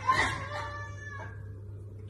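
A tabby cat gives one long, drawn-out meow, loud at first and fading away over about a second and a half, over a steady low hum.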